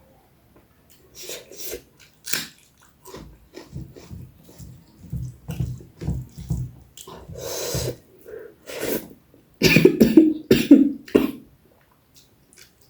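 A person eating close to the microphone: wet chewing and mouth smacks in quick irregular bursts, with a longer slurp about halfway through.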